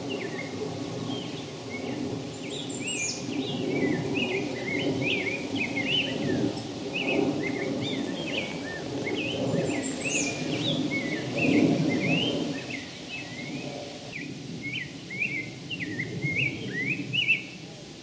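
Male rose-breasted grosbeak singing, a continuous run of short rising and falling whistled phrases, with a few thin high downslurred notes from another bird about three and ten seconds in. A low background rumble runs beneath.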